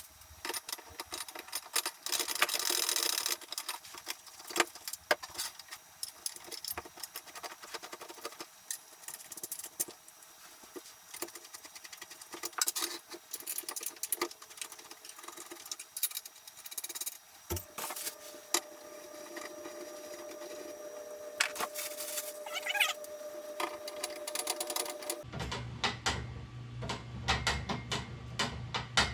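Knocks, clicks and rattling of workbench parts and hardware being handled and fitted together during assembly. Near the end the sound changes abruptly to a steady low hum.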